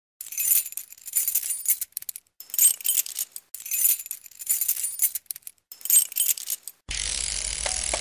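Title-sequence sound effect: several swells of high, glittering jingling and clinking, like shaken bells or chimes. At about seven seconds it gives way to steadier intro music with a fuller, lower sound.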